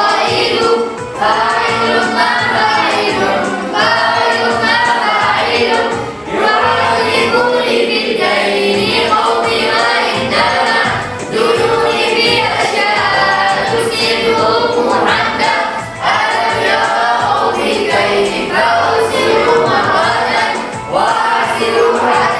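A voice chanting an Arabic poem to a melody in the Tawil meter, phrase after phrase, with a short breath pause every few seconds.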